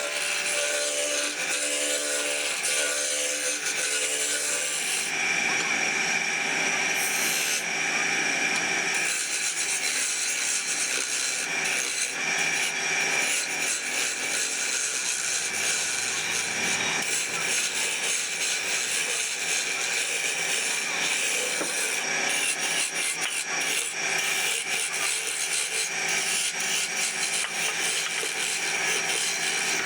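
Wood lathe running while a tool scrapes against the spinning wood: a continuous rasping noise with a faint steady whine under it.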